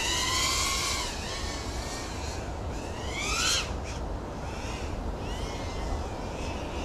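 FPV quadcopter's brushless motors whining, the pitch rising and falling with throttle changes, with a sharp climb about three and a half seconds in. Under it is a low rumble of wind on the microphone.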